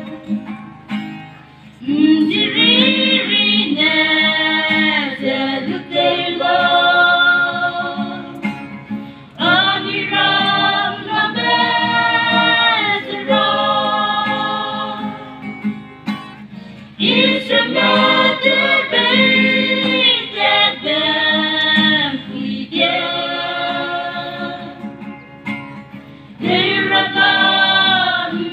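A choir singing a gospel song, in phrases a few seconds long with short breaks between them.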